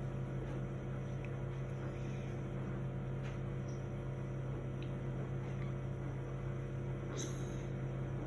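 Steady low electrical hum, with a few faint soft taps over it.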